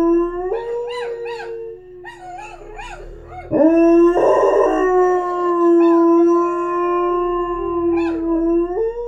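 Black Border Collie–Labrador mix dog howling: long, drawn-out howls held on a steady pitch, louder from about three and a half seconds in, with a brief rise in pitch near the end.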